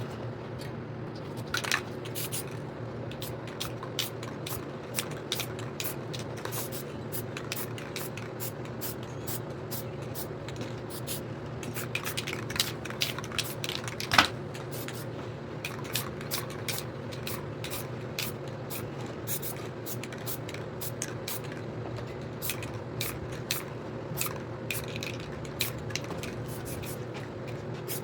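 Aerosol spray paint can hissing in many short, quick bursts at an uneven pace, over a steady low hum.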